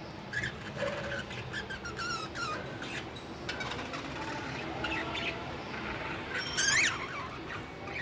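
Budgerigars chirping: short, scattered chirps and squeaks, the loudest a quick rising-and-falling chirp near the end.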